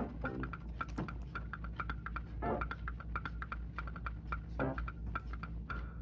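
A paintbrush clinking against the inside of a small glass paint bottle as the paint is stirred: quick, irregular light clicks, each with a short glassy ring, over a steady low hum. Two brief pitched sounds come through about halfway and near the end.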